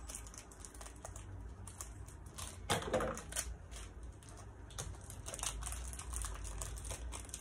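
Scissors snipping through the plastic wrapper of a block of mozzarella cheese, then the plastic crinkling as it is peeled off, with a louder crackle about three seconds in.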